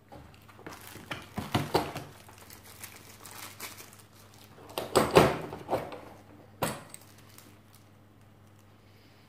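Handling noise: knocks and rattles of a power tool and accessories in a hard plastic carry case, and a plastic bag crinkling around a metal keyed drill chuck, with one sharp click about two-thirds of the way through.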